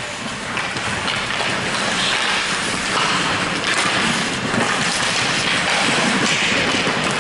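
Ice hockey rink during play: a steady hiss of skate blades scraping and carving the ice, blended with the rink's general din.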